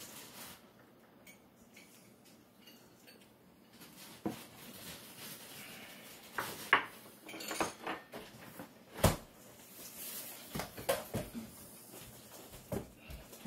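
Stainless steel mixing bowl and cookware clinking and clanking at the stove. The first few seconds are quiet, then scattered sharp knocks start about four seconds in; the two loudest come near the middle.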